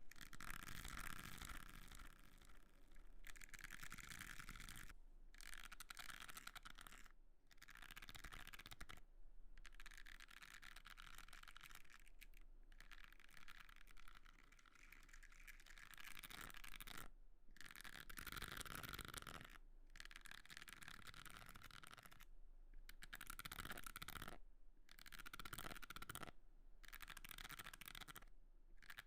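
Soft brush bristles scratching in long, quiet strokes, in stretches of a few seconds broken by short pauses.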